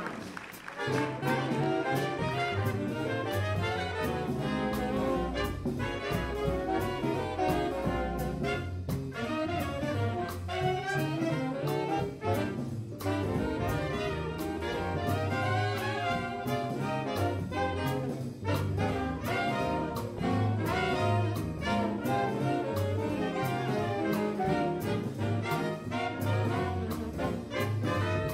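Jazz big band playing live: trumpets, trombones and saxophones over string bass, piano and drums. The cymbal keeps an even, steady beat and the bass steps from note to note underneath.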